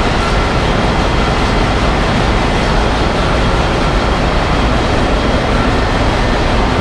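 Loud, steady engine-room din from a ship's B&W two-stroke main engine running at slow speed, about 51 rpm: an even, unbroken noise with a faint steady high tone over it.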